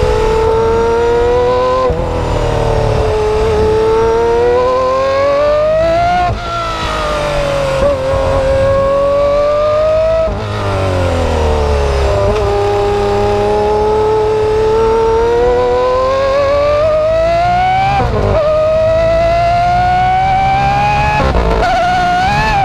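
Aston Martin engine being driven hard. The engine note repeatedly sinks and climbs with the revs, with sudden breaks in pitch at each gear change, about half a dozen times.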